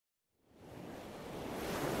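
Sea surf washing ashore, fading in from silence about half a second in and growing louder.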